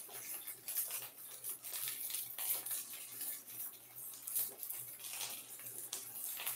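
Jasmine-rice patties frying in hot oil in a stainless steel skillet: a steady sizzle with many small pops and crackles.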